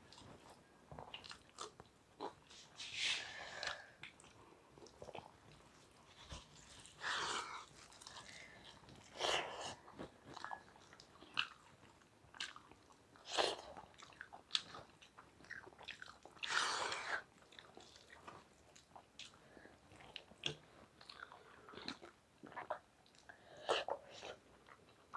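People eating rice and fish curry with their fingers: close chewing and wet mouth sounds in irregular short bursts, with soft clicks of food being mixed by hand on steel plates.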